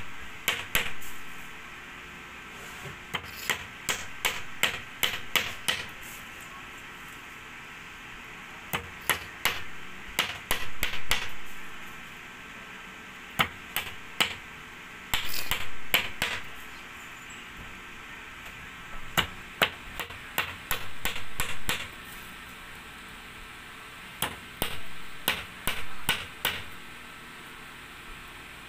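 Hammer driving nails into a wooden strip, in groups of several quick, sharp strikes every few seconds as each new nail is started and sunk.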